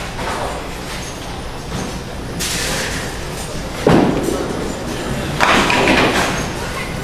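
Duckpin bowling balls rolling on wooden lanes with clattering impacts: a sudden loud crash about four seconds in, then a longer clatter of pins a second and a half later.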